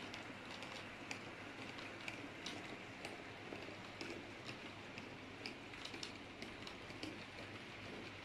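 H0-scale model freight train rolling past, a steady rolling hiss with light clicks about two to three times a second as the wagon wheels run over the track joints.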